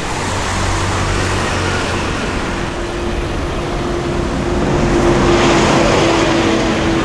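Road vehicle noise with a steady hum underneath, swelling to its loudest about five seconds in.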